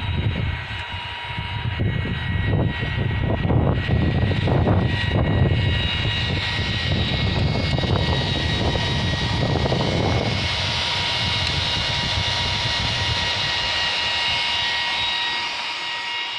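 2008 Yamaha R6's inline-four on its stock exhaust, revved in repeated quick blips for about the first ten seconds, then running more steadily.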